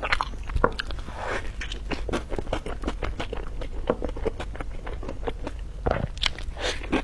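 Close-miked eating sounds: biting and chewing a dessert, with small crunches and wet mouth clicks coming irregularly throughout.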